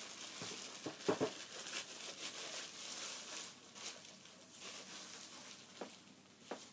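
Plastic bubble-wrap packaging crinkling and rustling as it is pulled off a shotgun stock, with a couple of sharp knocks about a second in.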